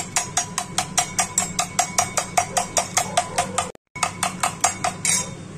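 Steel spoon clinking rapidly against a stainless steel bowl while beating raw eggs, about six quick strikes a second, stopping shortly before the end.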